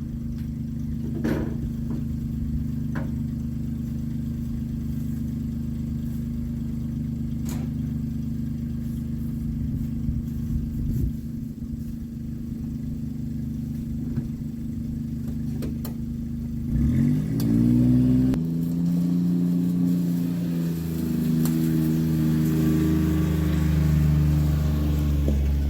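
A vehicle engine running steadily, with a few sharp knocks, then revving up about two-thirds of the way through and holding at a higher speed.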